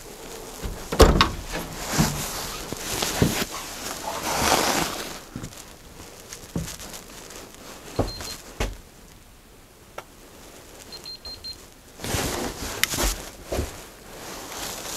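Footsteps, knocks and creaks on wooden boards, with rustling of clothing, as someone moves through an old log house. A handheld EMF meter gives a few short high beeps about eight seconds in and again about three seconds later.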